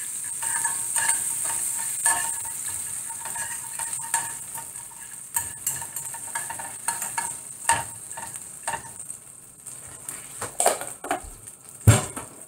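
Butter, oil and lime juice sizzling in a hot non-stick frying pan while a kitchen utensil scrapes and taps across the pan, spreading them around. The sizzle eases off, and there is one louder knock near the end.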